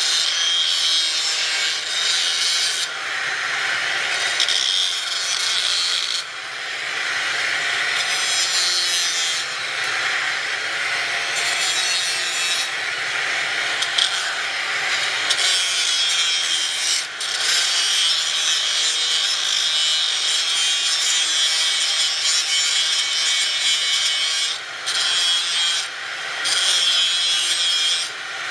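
Grinder grinding steel: a loud, continuous abrasive hiss that swells and eases every couple of seconds as the disc is pressed into the metal and let off, with a few brief dips.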